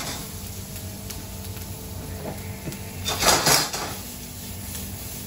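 Red onion frying in oil and butter in a very hot pan on a gas burner, over a low steady hum. About three seconds in comes a louder burst of sizzling and pan noise as the pan is worked with tongs.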